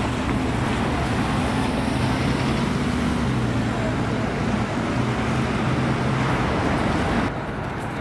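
Engine of a biogas-fuelled (CNG) RATP city bus running as the bus pulls past and drives away, over street traffic noise. The sound drops off abruptly shortly before the end, leaving quieter street noise.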